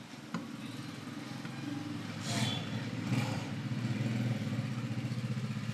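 An engine running steadily with a fast, even pulse, growing louder over the first few seconds; a couple of short hissy bursts cut in partway through.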